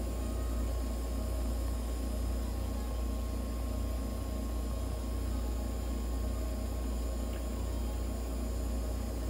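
Steady hum and hiss of the nebulizer and oxygen equipment pumping medicated mist into a veterinary oxygen cage during inhalation therapy, with no breaks or changes.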